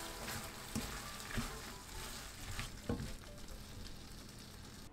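Food sizzling in a hot frying pan while being stirred, with a few sharp scrapes and knocks of the spatula against the pan.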